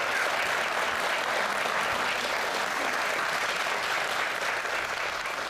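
Audience applauding steadily, many hands clapping together.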